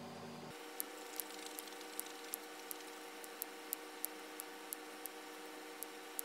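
A diamond-painting pen picking up rhinestones from a plastic tray and pressing them onto a sticky canvas: light, sharp clicks, about two or three a second, over a faint steady hum.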